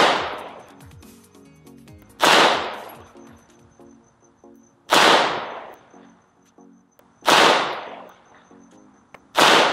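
A Gen5 Glock 17 9mm pistol fires five deliberate single shots of heavy 147-grain ammunition, one every two and a half seconds or so. Each shot is a sharp crack with a short echoing tail.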